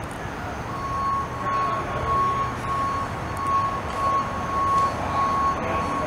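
A vehicle's reversing alarm beeping steadily, about two beeps a second, starting just under a second in, over a low background rumble.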